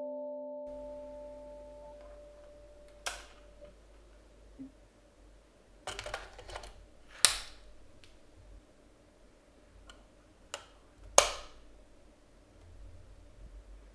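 Canon EOS 5D battery compartment being handled: a short run of scraping clicks as the battery slides into the grip, then scattered sharp plastic clicks from the battery and its door latching. The two loudest clicks come about seven and eleven seconds in.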